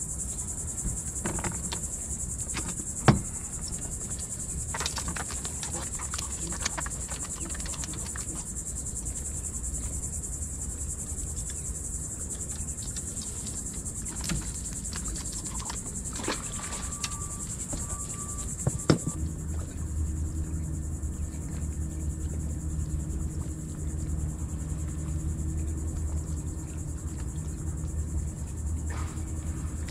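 Steady high-pitched insect drone from the shoreline vegetation, with a couple of sharp knocks about 3 and 19 seconds in. From about 19 seconds the drone is fainter and a low steady hum sets in.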